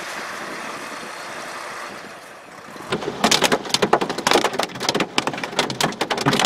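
A steady hiss that fades away over the first three seconds, then from about three seconds in a dense, irregular ticking and pattering of sleet and freezing rain striking a surface.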